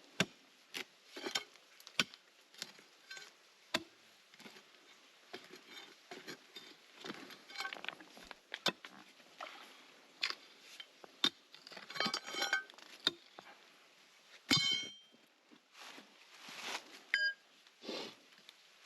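Hand tools scraping and tapping at rock while clearing out a gap, with irregular clicks, scrapes and loose stones clinking. The loudest is one sharp knock with brief ringing about two-thirds of the way through.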